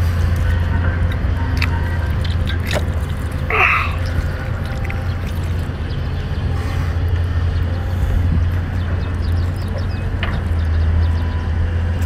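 Wet chewing and slurping of a mouthful of chili-coated whole octopus, with scattered small clicks and one louder wet slurp about three and a half seconds in, over a steady low rumble.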